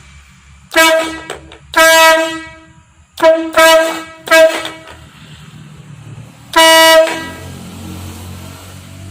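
Tankless electric air horn sounding six short blasts at one steady pitch: two blasts, then a quick run of three, then one more after a pause of about two seconds.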